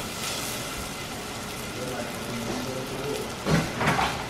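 Chopped onions frying in melted butter in a small saucepan: a steady sizzling hiss. Two loud knocks come in quick succession about three and a half seconds in.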